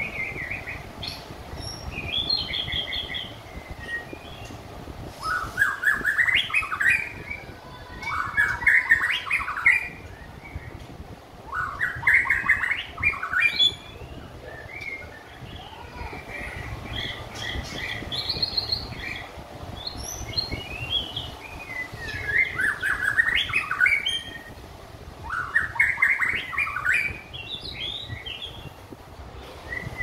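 Caged shama singing: bursts of quick, varied whistled notes lasting a couple of seconds each, with short pauses between phrases. The bird is newly through its moult and coming back into song.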